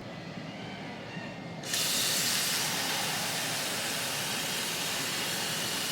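A steady hiss that starts suddenly just under two seconds in and holds at an even level.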